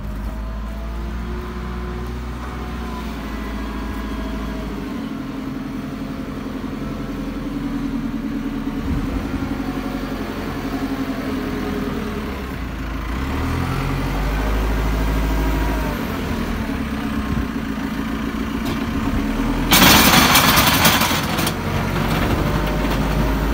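JCB 3CX Eco backhoe loader's four-cylinder diesel engine running as the machine drives and pushes snow, its pitch rising and falling as it revs. About twenty seconds in, a loud rushing, scraping noise lasts about two seconds.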